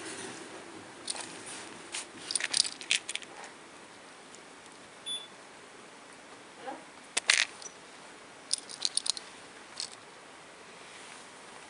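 Small cat toys rattling and jingling as a kitten bats at them and one is dangled, in several short bursts of clicks.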